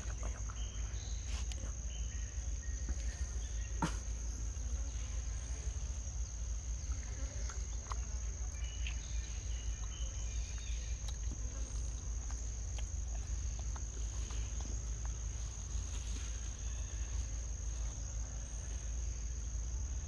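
Insects' steady high-pitched drone over a low, even rumble, with a single sharp click about four seconds in.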